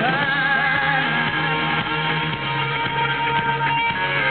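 Live rock band playing, electric guitar to the fore, over a steady bass line. A long held note wavers at first and then holds steady.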